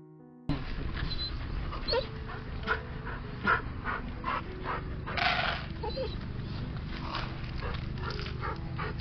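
Stray dog whimpering with a few short whines against steady street background noise and scattered clicks, with a louder rustling burst about five seconds in. A brief snatch of music ends about half a second in.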